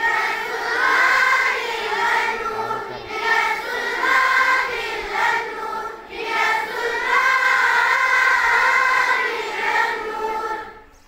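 Schoolchildren singing a prayer song together in unison, in long phrases with short breaks between them, stopping just before the end.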